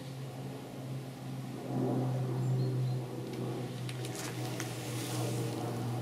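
Steady low hum of a honeybee colony in an opened hive, swelling about two seconds in. A few sharp clicks and scrapes come about four seconds in as a wooden frame is pried loose with a hive tool and lifted out.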